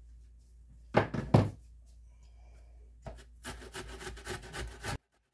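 A few loud knocks about a second in as the box grater is handled, then zucchini being shredded on the stainless-steel box grater in quick rasping strokes from about three seconds in, cutting off suddenly near the end.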